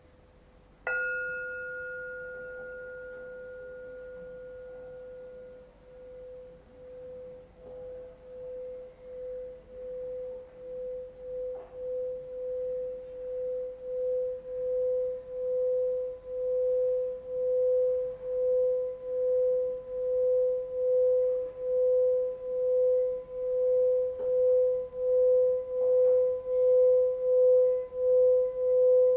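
Singing bowl struck once about a second in, its tone ringing with higher overtones that fade. It then swells into a sustained, slowly pulsing hum that grows louder, as when the rim is rubbed with a mallet.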